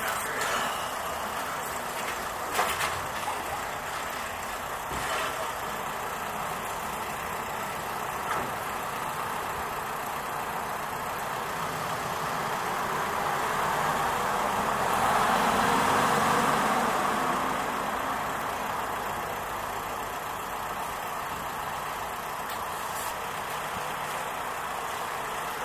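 Steady background of road traffic, with one vehicle passing that swells up and fades away about two-thirds of the way through. A few faint sharp clicks come in the first several seconds.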